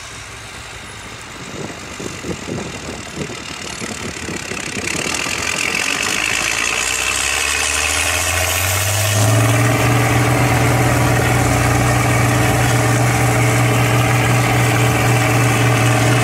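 Antique farm tractor engine running, growing louder over the first several seconds, then settling into a loud, steady drone from about nine seconds in.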